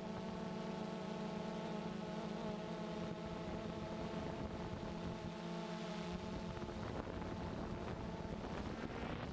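Quadcopter drone's motors and propellers running with a steady hum, heard from the camera on board, the pitch shifting slightly about seven seconds in.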